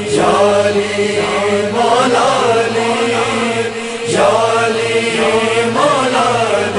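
A chorus of voices chanting a lament in slow phrases over a steady held drone note, as the introduction to an Urdu noha.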